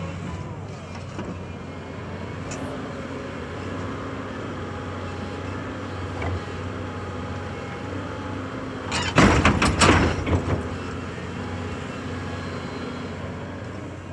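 2004 Volvo EC210BLC tracked excavator's diesel engine running steadily while the upper structure swings around on its slew. About nine seconds in comes a short burst of loud knocks lasting about a second and a half.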